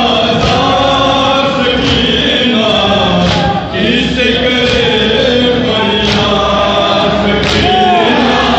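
Men chanting a noha (Shia mourning lament) together in unison, with sharp chest-beating strikes of matam landing in time about every second and a half.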